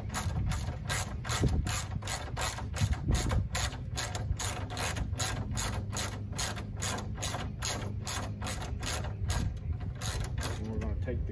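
Hand socket ratchet with a 10 mm socket clicking steadily, about three clicks a second, as it is worked back and forth to back out a bolt on the truck's grille.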